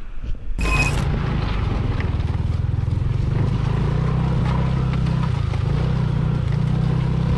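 Motorcycle engine running at a steady speed, after a short sudden burst of noise about half a second in.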